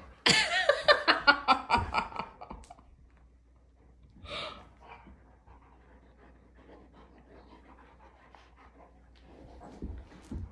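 A dog's quick, pitched, rhythmic breaths, about six a second, loud for the first two seconds, then a single sharp huff about four seconds in. After that only faint sniffing and shuffling as one dog noses at the other hidden under a blanket.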